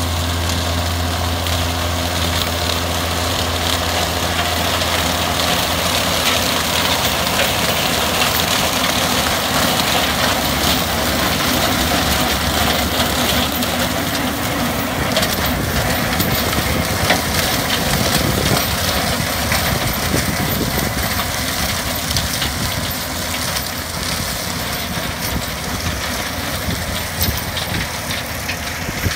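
A John Deere tractor's engine runs steadily under load while the Schulte FX520 flex-wing rotary cutter behind it shreds dry crop stalks. A low engine hum, plainest in the first few seconds, sits under a continuous rushing noise of stubble being cut and thrown.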